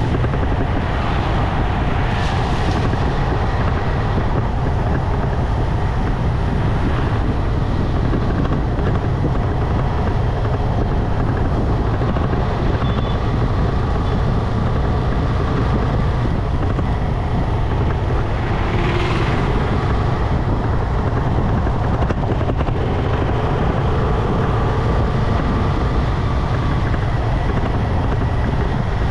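Steady wind rumble on the microphone and road noise from a motorcycle riding along at speed, with a brief swell of hiss about two-thirds of the way in.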